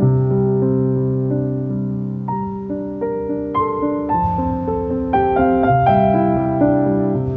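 Background music: slow, gentle solo piano, sustained notes and chords.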